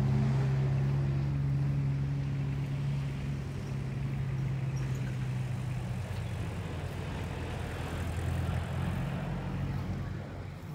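Engines of off-road 4x4 vehicles running at low revs while crawling over rocks: a steady engine drone that fades after a few seconds, then another engine note swelling about eight seconds in as a vehicle comes closer.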